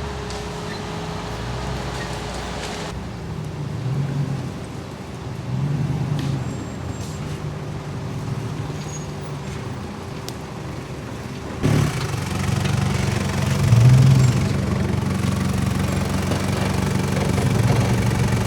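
Off-road vehicle engine running at low revs, swelling briefly a few times as the throttle is worked. A sharp knock comes a little before twelve seconds in, after which the engine runs louder.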